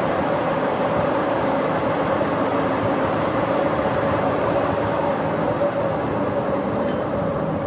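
Metal lathe running with a steady hum. Two short high ticks come about a second apart midway.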